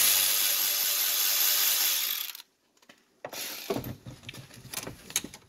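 Cordless electric ratchet running for about two seconds as it backs a nut off a terminal stud on the GEM car's electric drive motor, then stopping suddenly. A few light clicks and knocks follow as the nut and wires are handled.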